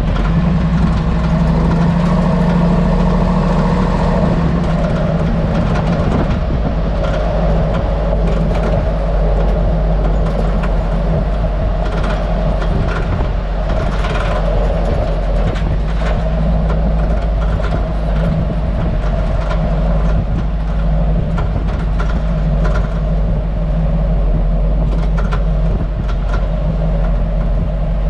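Hummer H2 rear suspension heard from under the vehicle while driving slowly: a steady low road and drivetrain rumble with irregular sharp clicks and knocks, several bunched together around the middle and again near the end. This is the rear-end cracking and rattling whose cause is unknown; new springs, shocks, spring seat rubbers and sway bar bushings and links have not cured it.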